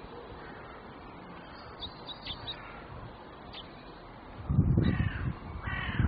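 A crow cawing twice near the end, two harsh calls under a second apart. Just before the caws comes a short, loud low rumble, and a few faint high bird chirps sound earlier on.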